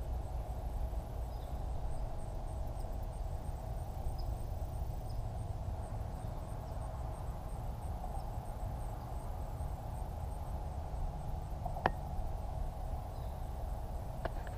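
Quiet outdoor ambience at a pond's edge: a low steady rumble and a steady faint drone, with a faint high insect chirp pulsing regularly. A single sharp click comes about twelve seconds in.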